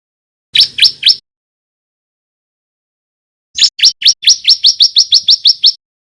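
Bar-winged prinia (ciblek), a young male still learning its song, calling loudly: three sharp rising chips, then after a pause a fast run of about fourteen rising notes that quickens before stopping.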